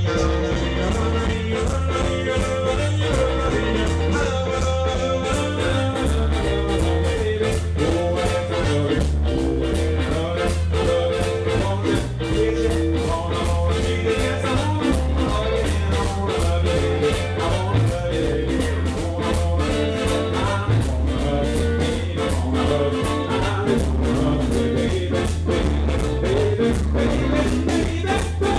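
Live band playing an upbeat ska-like song with a steady quick beat, mostly instrumental between the sung lines.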